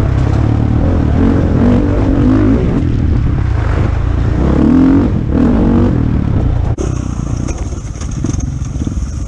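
KTM enduro motorcycle engine heard from the bike itself, revving up and down again and again as it is ridden along a muddy dirt trail. About two-thirds of the way in the sound breaks off abruptly and goes on quieter, with a steady high whine.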